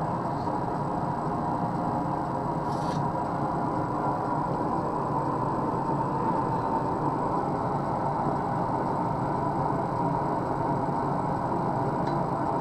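Steady running noise of a blacksmith's forge, an even drone with a faint hum held on one pitch. It ends in a sharp metallic clink.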